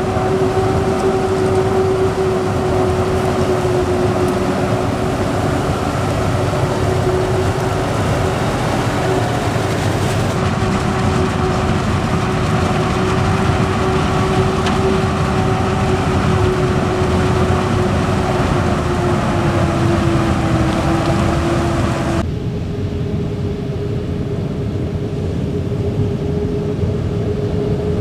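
Claas Jaguar 990 forage harvester running under load while chopping maize, a steady machine noise with a high whine running through it, and tractors alongside. The sound shifts abruptly about ten seconds in and again about twenty-two seconds in, losing much of its hiss the second time.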